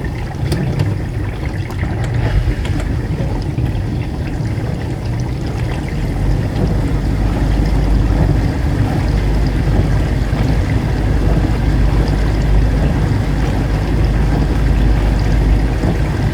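Dishwasher running: water spraying and sloshing inside the tub over a steady motor hum, the low hum growing stronger about six seconds in.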